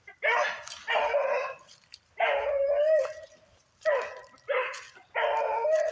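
Young hound baying on a rabbit trail: about six drawn-out bays, the third one held for nearly a second, the sign that the dog is on a cottontail's scent and giving voice as it runs it.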